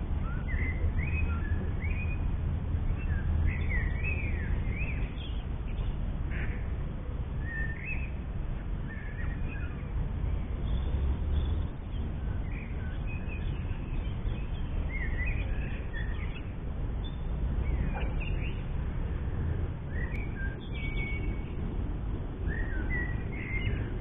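Small birds chirping and singing in short phrases, scattered throughout, over a steady low rumble.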